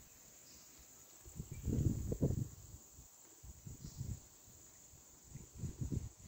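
Wind buffeting the microphone in irregular low gusts, strongest about two seconds in and again near the end, over a steady high drone of insects.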